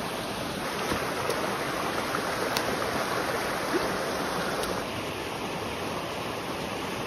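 Fast-flowing stream rushing over rocks: a steady rush of water.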